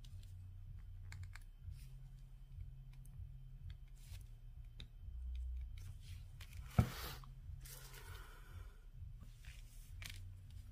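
Faint clicks and taps of diamond painting tools and resin drills being handled on the canvas, with one sharp tap a little under seven seconds in and a brief rustle shortly after, over a low steady hum.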